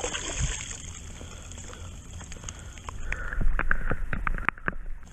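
Low wind rumble on the microphone and a steady hiss, then a quick run of about ten sharp clicks lasting a little under two seconds near the end, the loudest part.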